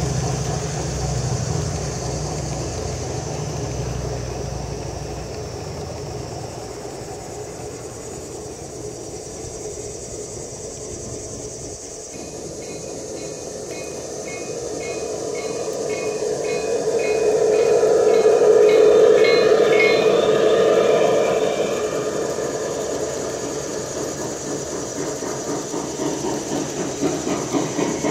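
G-scale model freight cars rolling along garden railroad track, the wheels clicking in a steady rhythm over the rail joints. The sound swells about two-thirds of the way through as cars pass close, then eases off, with a regular pulsing near the end.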